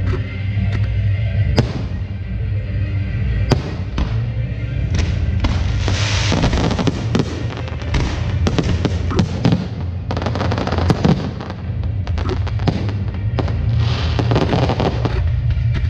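Fireworks going off: repeated sharp bangs with spells of dense crackling, over music playing throughout.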